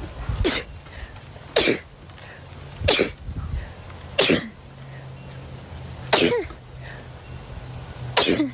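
A woman sneezing six times in a row, sharp sneezes a little over a second apart at first and further apart toward the end. They are sun sneezes: a photic sneeze reflex set off by looking into the sun.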